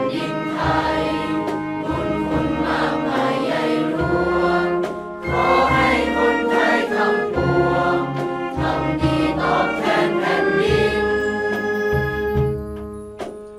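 A large choir of students singing in unison over orchestral accompaniment, the music growing quieter near the end.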